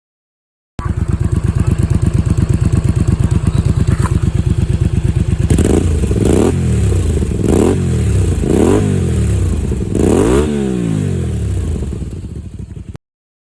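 Honda VT250F's V-twin engine heard through its exhaust silencer, idling with an even pulse, then several quick throttle blips about a second apart, each rev rising and falling back, before settling to idle again.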